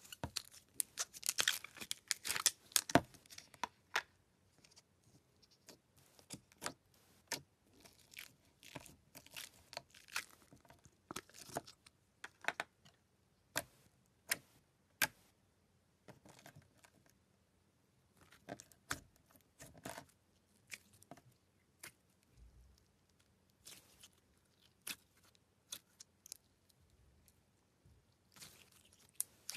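Clear blue slime handled by fingers, giving faint sticky clicks, pops and crackles at irregular intervals, densest in the first few seconds as it is pulled from its container.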